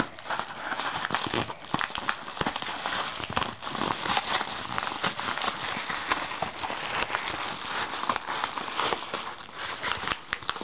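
A speed cube's packaging being opened by hand, crinkling and crackling with a dense run of small clicks.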